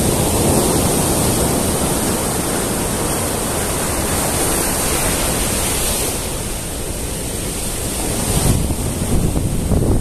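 Ocean surf breaking and washing up over a sandy, rocky beach, easing a little about six seconds in and building again near the end. Wind gusts on the microphone.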